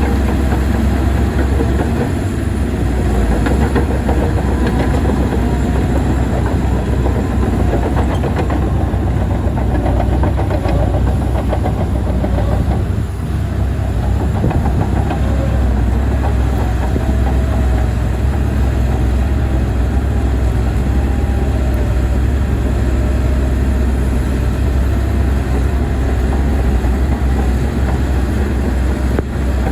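Heavy tracked earth-moving machine, a bulldozer or excavator, with its diesel engine running steadily under load and its steel tracks clanking and rattling, with a faint wavering squeal.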